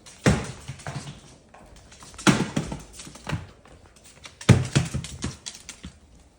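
Three bursts of knocking and clattering, about two seconds apart, as a Moluccan cockatoo handles and shoves a toy puppy about on a hard floor at the top of the stairs.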